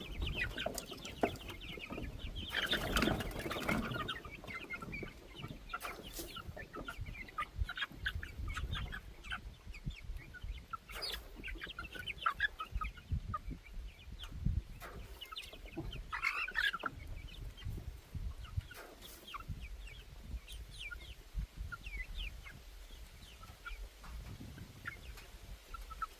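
A flock of chickens clucking, many short calls overlapping, loudest for a moment about three seconds in, with a few sharp knocks here and there.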